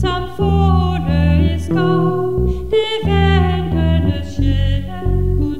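A woman singing a Danish hymn with piano and bass accompaniment, the bass moving in steady low notes under the melody.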